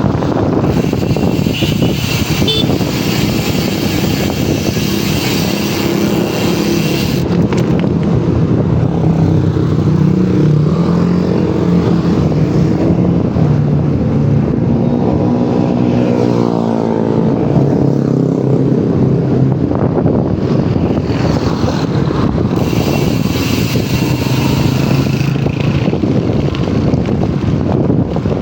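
Bicycle rear hub (Paps Pro 3) ticking in a fast buzz while coasting, under heavy wind noise on the microphone.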